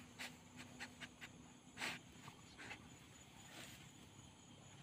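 Faint rustling and crackling of dry grass as a dog pushes its head into it, with a few short crackles and one louder noisy burst about two seconds in.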